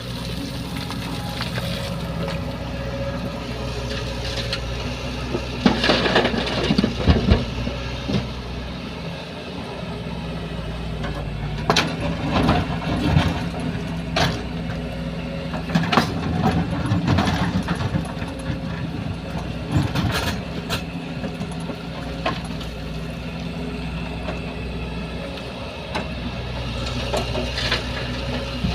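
Diesel engine of a Kobelco 140 excavator running steadily, with several bouts of loud clattering and crashing as loads of stone drop into a dump truck's steel body.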